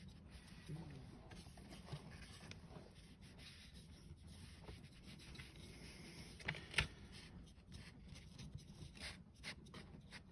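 Faint scratchy rubbing of a paintbrush working a pigment wash over a model's gun barrels, with a few light taps, the sharpest about seven seconds in.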